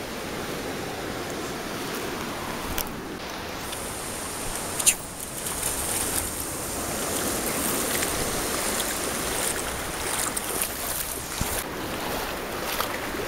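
Shallow seawater washing and sloshing over a rocky shore, with splashing from bare feet wading through ankle-deep water, strongest in the middle stretch. One sharp knock a little before halfway.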